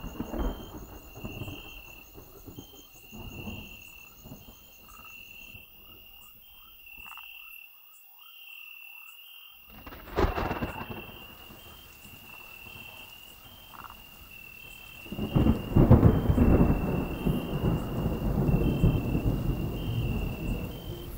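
Thunderstorm at night: rain falling, a sharp thunderclap about ten seconds in, and a long rolling rumble of thunder from about fifteen seconds on. Through it, tree frogs call with short high notes repeated steadily.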